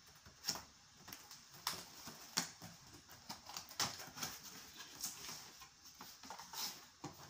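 Cardboard box being handled on a wooden table: irregular knocks, taps and scrapes as the box is laid flat and its lid flap is pulled open.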